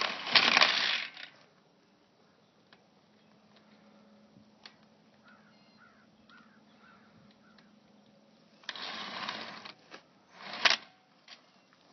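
Metal clinking and rattling of a wheel's lug nuts and lug wrench being worked, in two bursts of about a second each, one at the start and one near the end, with a sharp clink just after the second and faint ticks in between.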